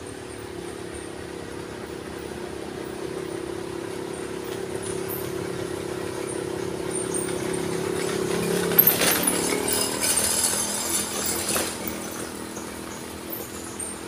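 Motorcycle engine running steadily as it approaches, growing louder to a peak as it passes close about nine seconds in, then fading as it rides away.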